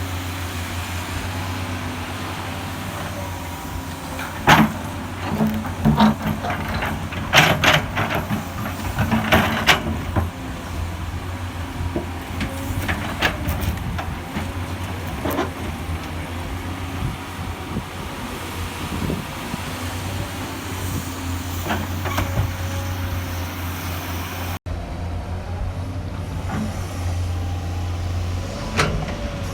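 Hydraulic excavator's diesel engine running steadily, with sharp metallic clanks and knocks from the bucket and arm working, most of them between about four and ten seconds in. The sound cuts abruptly near the end.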